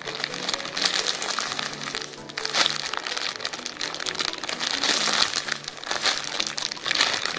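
Clear plastic packaging crinkling and crackling irregularly as a squishy toy sealed inside it is handled and squeezed, with background music underneath.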